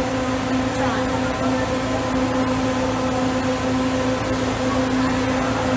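Transit bus idling at the kerb: a steady engine and air-conditioning hum with a constant low drone.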